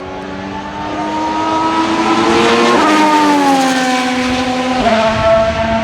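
Alpine A523 Formula 1 car's 1.6-litre V6 turbo-hybrid engine at full throttle, growing louder as it climbs in pitch, then dropping in pitch twice, about three and five seconds in, and holding loud and steady after the second drop.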